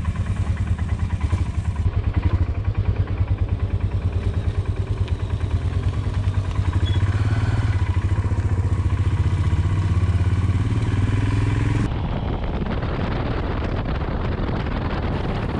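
Royal Enfield Himalayan's 411 cc single-cylinder engine running under way, heard from a camera mounted on the bike, its pitch climbing somewhat around the middle. Near the end the sound cuts to a steadier, duller engine note on the highway.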